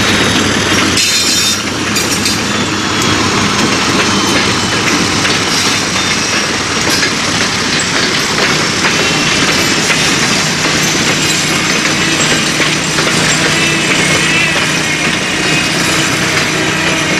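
A train of freight cars and passenger coaches rolling past close by, its steel wheels running on the rails in a steady, loud rumble.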